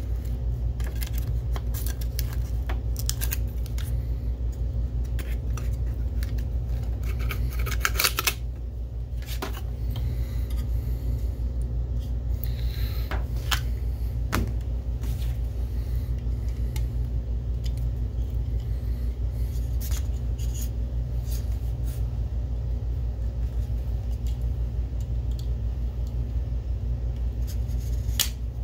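Hard plastic and metal parts clicking, tapping and rattling as a DLP projector's lamp module is handled and worked out of its bay, with the sharpest clatter about eight seconds in. A steady low hum runs underneath.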